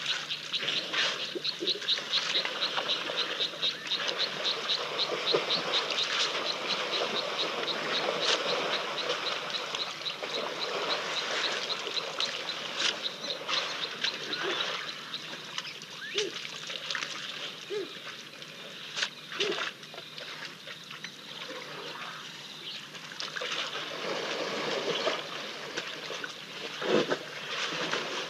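Water splashing and trickling as African elephants drink at a waterhole, with scattered small clicks. A high, rapidly repeated chirp, about four a second, runs through roughly the first ten seconds.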